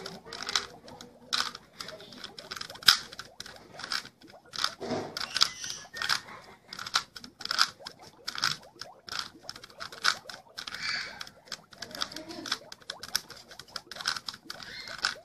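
Plastic Rubik's cube being twisted by hand, layer after layer: a quick, irregular run of clicks and clacks, several a second.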